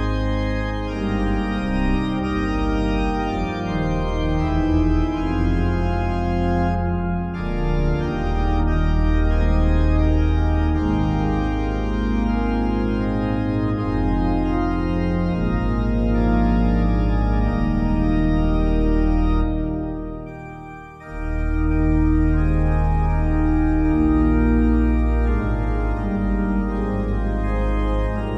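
Slow background music of long-held chords, with a brief dip in loudness about twenty seconds in.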